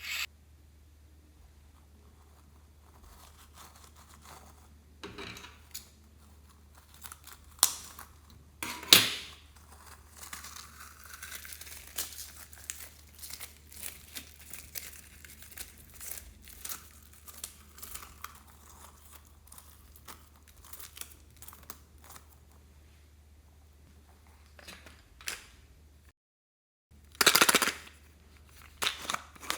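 Slime being squished and stretched by hand: irregular sticky clicks and crackles, with louder snaps about nine seconds in and near the end. A low steady hum runs underneath.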